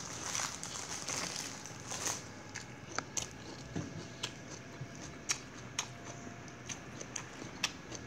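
A person eating with their hands: a rustle of fresh vegetable leaves being picked up, then a string of short sharp clicks and smacks of chewing.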